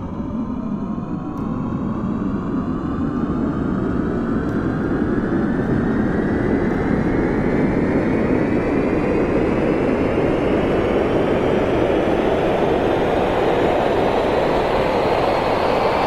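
Airplane engines powering up for takeoff: several whining tones rise steadily in pitch over a roar that builds in loudness.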